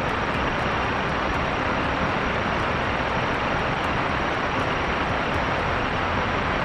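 Aerospike rocket engine firing on a test stand: a steady, even rush of exhaust noise that holds without any change in pitch or level.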